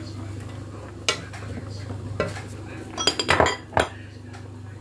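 A china dish knocking and scraping against the rim of an aluminium saucepan as chopped onion is tipped in. There are a couple of single knocks, then a burst of clattering about three seconds in.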